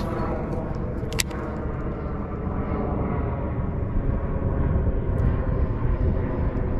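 Steady, low engine drone that does not change, with a single sharp click about a second in.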